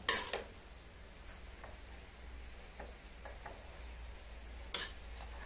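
Metal spoon stirring grated carrots in a metal pot, clinking sharply against the pot at the start and again near the end, with a few faint scrapes and ticks between.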